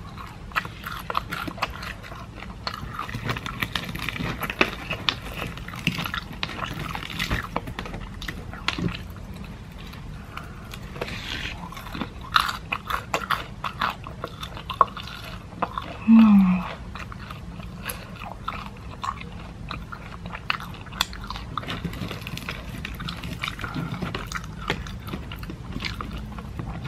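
Close-up chewing and biting of KFC Golden Egg Crunch fried chicken, the crispy salted-egg coating crackling in many small crunches throughout. Around halfway through there is a brief hummed "mm". The crunch is not very loud because the chicken was bought about an hour earlier and has lost some crispness.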